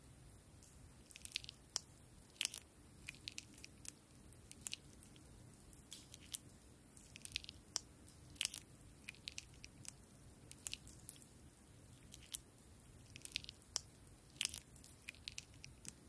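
Red slime being stretched and squeezed by hand, giving irregular sharp crackles and small pops, several a second.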